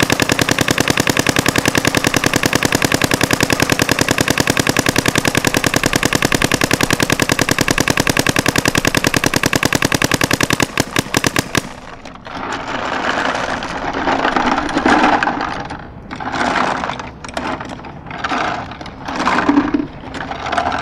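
Electronic paintball marker firing a rapid, steady stream of shots for about eleven seconds. It slows to a few spaced shots and stops as the loader runs nearly empty. Then come irregular rattling noises as the marker and loader are tilted to feed the last paintballs.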